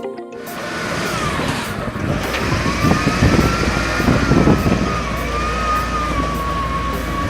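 A motor vehicle running, with a low rumble and a whine that slides down in pitch during the first two seconds and then holds steady. The rumble swells a few seconds in.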